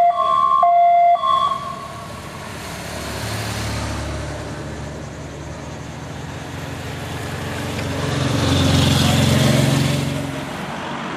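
Two-tone siren of a race escort motorcycle, alternating between a high and a low note, which stops about a second and a half in. Then motor vehicles pass, their engines swelling to a peak late on and fading.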